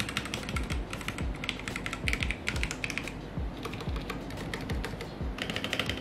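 Fast typing on an E-YOOSO Z-13 mechanical keyboard with red linear switches and PBT keycaps: a quick, steady run of key clacks as the keys bottom out.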